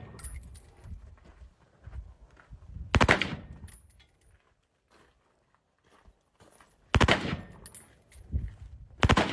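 Fully automatic firearm firing three short bursts, each well under a second, about three seconds in, seven seconds in and just before the end.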